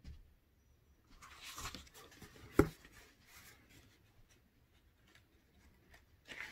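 A paperback picture book being handled, its pages and cover rustling as it is closed and turned over. There is one sharp tap about two and a half seconds in.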